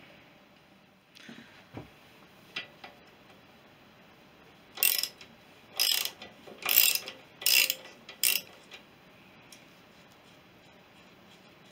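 Hand ratchet clicking in five short bursts as it works the front fork's spindle pinch bolt loose, after a few light tool clicks.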